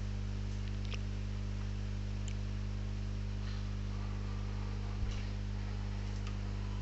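Steady low electrical hum with a faint hiss from the recording microphone, and one faint low knock about five seconds in.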